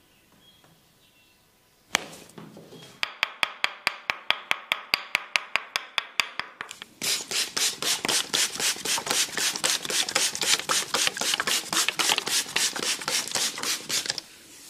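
Tok sen massage: a wooden mallet tapping a wooden wedge in a fast, even rhythm of about seven knocks a second. From about seven seconds in the strokes become louder and harsher, then stop shortly before the end.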